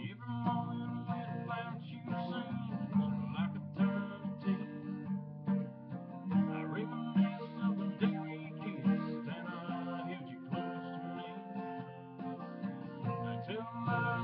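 Acoustic guitar strumming chords in a song's instrumental passage.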